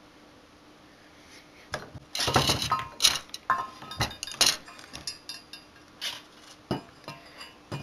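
Hard parts of a dismantled projection CRT clinking and knocking as they are handled: glass and metal pieces tapping against each other and the desk. The clinks come irregularly from about two seconds in, a few of them ringing briefly.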